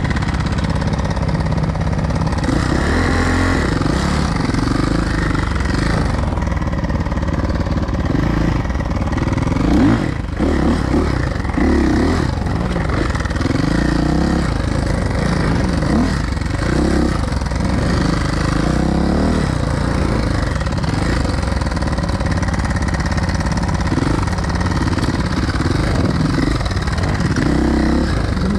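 Suzuki dirt bike's engine being ridden hard, the revs rising and falling again and again through the run. A brief sharp knock about ten seconds in.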